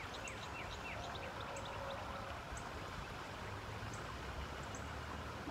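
Steady rush of flowing river water. A bird gives a quick series of short, falling chirps in the first second.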